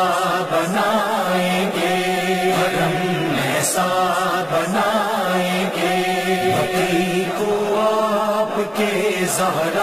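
Voices chanting a slow, melodic religious chant in long held notes, repeating the same phrase every couple of seconds.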